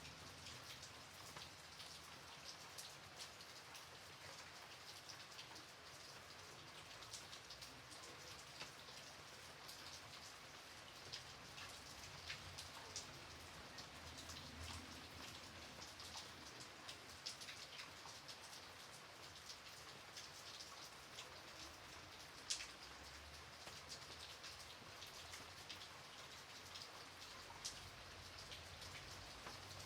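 Light rain falling steadily, a soft even patter with scattered individual drops ticking sharply on a surface, a few of them louder.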